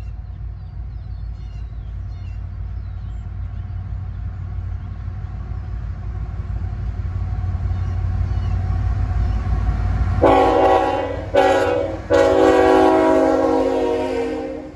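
CSX diesel freight locomotives approaching, their engine rumble growing steadily louder. About ten seconds in, the lead locomotive's horn sounds three blasts: a long one, a short one, then a longer one that stops just before the end.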